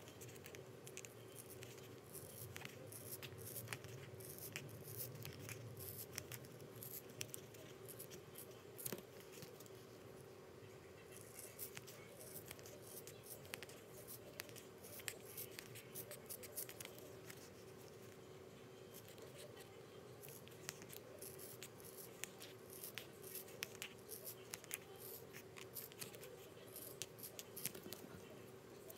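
Sharp scissors snipping through leather glued to fabric: a long run of short, faint cuts, thinning out briefly about ten seconds in.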